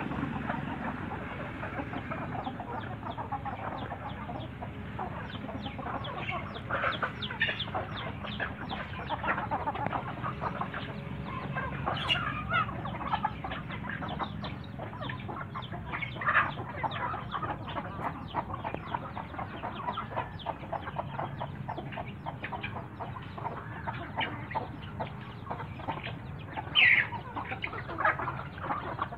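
A flock of domestic chickens, hens and roosters, clucking continuously as they feed, with a few louder calls standing out, the loudest near the end.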